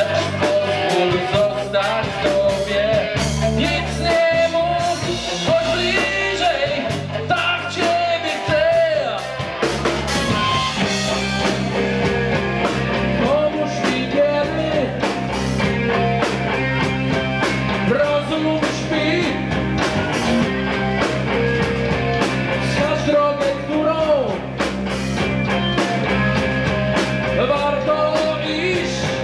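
Live hard rock band playing loud, with electric guitars through valve amps, bass and a drum kit. The first ten seconds or so are stop-start riffing; after that the band settles into a steady, driving groove.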